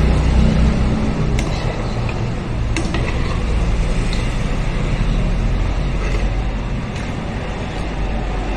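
A motor vehicle's engine running close by, a steady low rumble, with a few light clicks over it.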